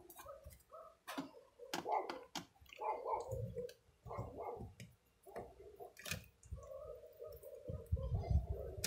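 Hand screwdriver backing out small screws that hold a keyboard's controller board to its plastic base. The tip clicks in the screw heads and the screws creak in the plastic, with a longer steady creak near the end.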